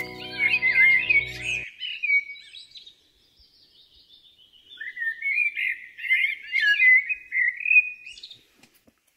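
A songbird singing long, rapid warbling phrases in two bouts, the second starting about five seconds in. Background music with held chords runs under the first bout and cuts off suddenly just under two seconds in.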